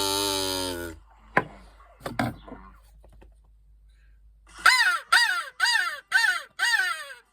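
A crow cawing five times in quick succession, each caw falling in pitch, in the last few seconds; it is a farmyard sound effect. Before it, a loud held tone sounds for about the first second, followed by a couple of soft knocks.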